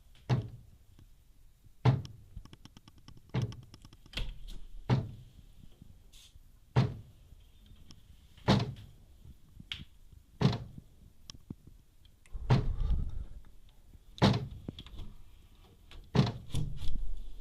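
Dull knocks against a window, about a dozen at uneven gaps of one to two seconds. There is a longer rough, rattling stretch past the middle and a quick run of knocks near the end. The cause is unknown to the person recording.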